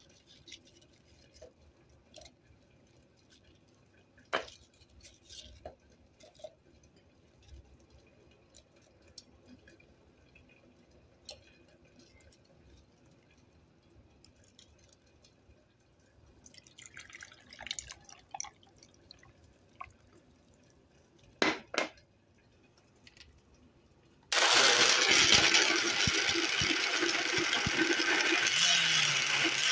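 Fruit pieces dropped into a plastic blender jar with faint knocks, then water poured in and a couple of sharp clicks. About 24 seconds in, an electric blender starts and runs steadily and loudly, pureeing the fruit and water into juice.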